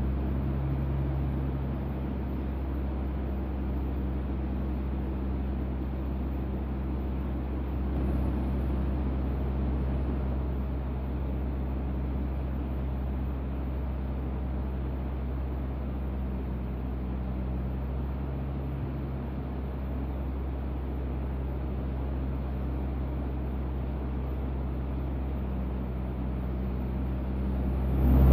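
Vac truck's CAT C7 diesel engine running steadily at a constant speed, a low even drone. It rises sharply in level right at the end.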